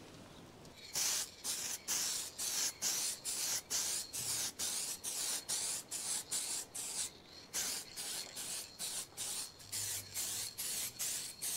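Aerosol spray can of heat-resistant clear coat spraying in short, quick bursts, about two to three a second, starting about a second in.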